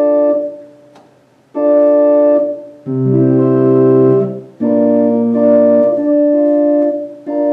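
Baldwin HT2 electronic home organ playing a series of five sustained chords with short breaks between them. The middle two chords have a deep pedal bass note under them.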